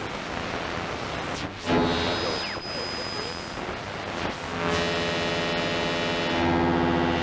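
Static and hiss from a defective radio, with a brief dropout and a thin steady whistle. It then turns into a steady buzzing hum of many tones about four and a half seconds in, growing louder near the end.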